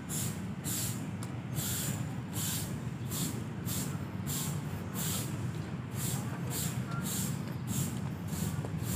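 Footsteps scuffing on a paved path at a walking pace, about two steps a second, over a steady low rumble.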